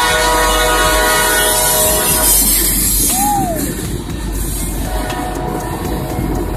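Freight locomotive horn sounding one steady chord for about two seconds, over the steady rumble and rattle of freight cars rolling past on the rails. A short swooping tone rises and falls about three seconds in.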